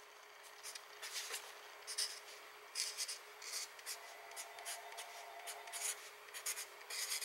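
Marker pen writing a word on paper: a quick run of short, irregular scratchy strokes.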